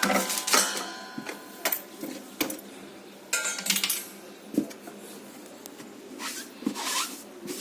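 Irregular clatter, knocks and scrapes of hard objects being handled, with a few brief metallic rings.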